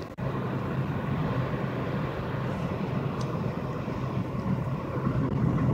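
Steady road and engine noise inside a moving car's cabin, a low hum under a hiss, with a brief dropout just after the start.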